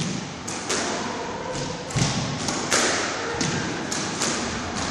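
A squash rally: the rubber ball cracking off rackets and the court walls in quick succession, about ten sharp hits spaced roughly half a second apart.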